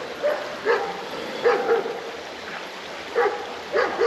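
A dog barking angrily over and over: about seven short barks in uneven runs, sometimes two or three close together.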